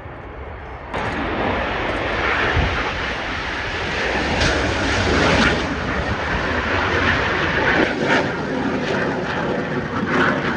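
Frecce Tricolori's Aermacchi MB-339 jets flying overhead in their display, a loud jet noise that jumps up suddenly about a second in and then swells and eases.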